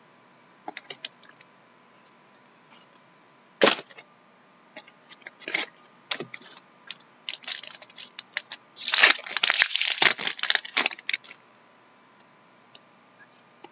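Trading cards handled on a desk: scattered sharp clicks and flicks of card stock, with a denser run of rustling and clicking about nine to eleven seconds in.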